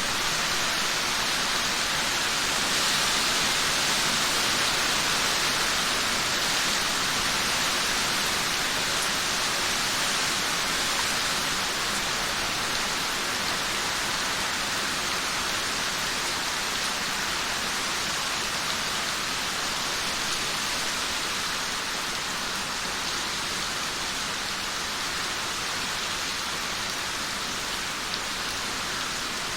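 Heavy rain falling steadily, a dense even hiss of drops on the street and trees, easing slightly toward the end.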